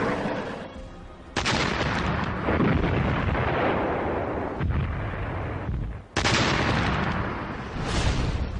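Artillery shell explosions: a sudden blast about a second and a half in and another about six seconds in, each trailing off in a long rumble, with a smaller blast near the end.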